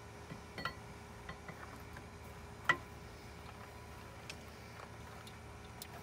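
Scattered light metallic clicks and taps, one sharper click about two and a half seconds in, as a new camshaft is worked by hand into the cam bore of a 5.7 Hemi V8 block. A faint steady hum runs underneath.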